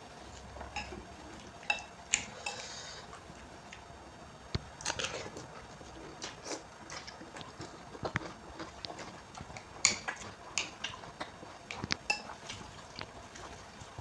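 Close-up eating sounds: chewing and crunching of Indomie noodles with raw bean sprouts, with irregular clicks and clinks of cutlery against the plate or bowl.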